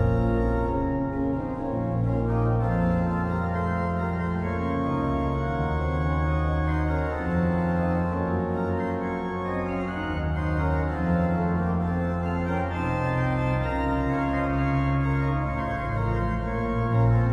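Pipe organ music: sustained chords over long held bass notes that change every second or two.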